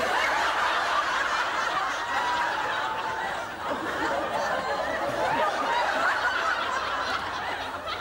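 Studio audience laughing, many people at once, dipping briefly about three and a half seconds in and then carrying on.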